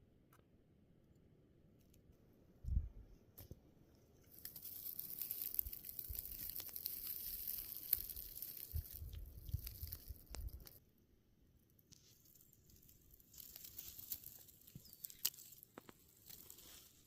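Close rustling and crackling in two stretches, with a few low thumps.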